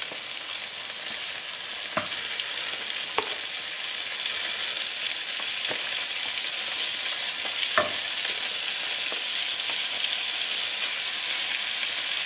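Chicken fillets sizzling steadily as they fry in hot liquid margarine, the hiss growing a little louder as more pieces go in. A few sharp clicks from the wooden tongs sound as the pieces are laid in the pot.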